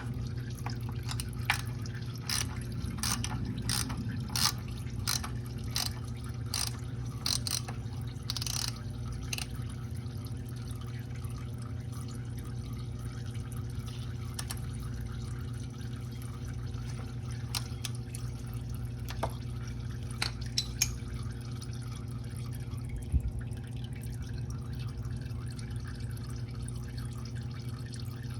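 Engine oil dripping from a 2012 Lexus RX 350 into a drain pan as the last of the old oil drains out. The drips come about twice a second at first, then thin out to an occasional drop after about nine seconds, over a steady low hum.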